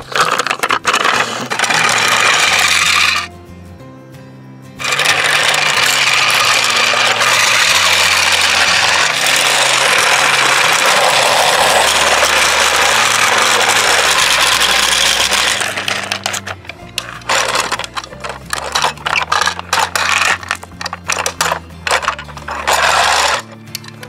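Background music over the gritty rattle of plastic toy construction vehicles rolling over small rocks and gravel on concrete. Later come many separate clicks as stones knock and clatter.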